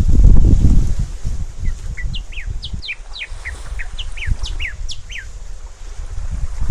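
A small bird singing a quick run of short chirps that each fall in pitch, about four a second for several seconds. Wind buffets the microphone throughout, strongest in the first second.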